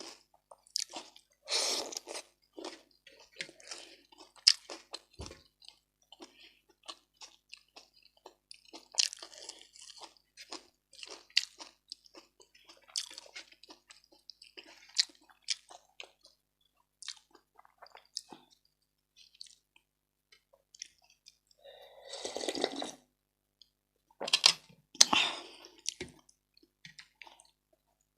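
Close-miked eating sounds: many short wet clicks, smacks and crunches of chewing rice and fish head soup. About 22 seconds in comes a longer wet sound, a slurp of the soup, and two louder crunching bites follow soon after.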